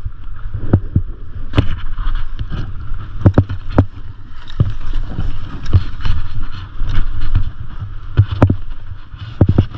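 Skis running and scraping over groomed, packed snow, with wind buffeting the microphone as a steady rumble. Irregular sharp knocks and clatters come through several times a second or so.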